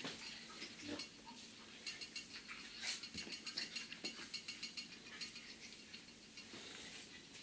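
Quiet, rapid, irregular clicking and rattling of a Shetland sheepdog's claws scrabbling on a rug, with a few louder knocks, the clearest near the start and about three seconds in.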